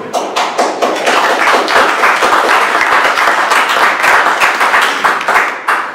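Audience applauding with dense clapping that begins at once and stops fairly abruptly near the end.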